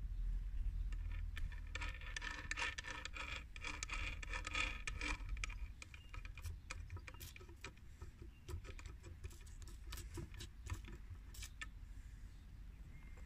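Small metal kickstart gears in a Honda QR50 engine casing being turned and shifted by hand, rattling with rapid clicking and scraping for the first few seconds, then scattered single clicks, over a low rumble.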